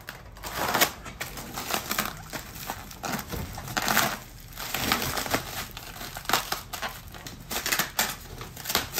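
Plastic packing wrap crinkling and crackling as it is pulled off and handled, in irregular flurries.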